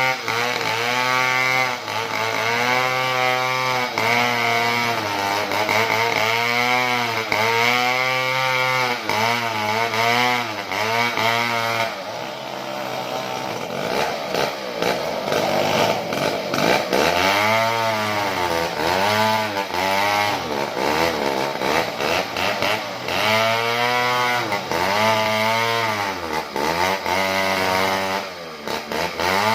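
Small two-stroke chainsaw running under load as it rips through wood, its engine pitch rising and falling over and over, about once a second, as the cut bites and eases. It turns rougher and less tonal for a few seconds in the middle.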